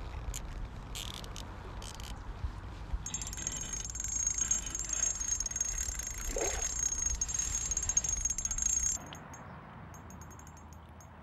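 Wind buffeting the microphone at the water's edge. From about three seconds in a steady high buzz of rapid ticking joins it. Both stop abruptly about nine seconds in, leaving quieter water-side ambience with a few faint ticks.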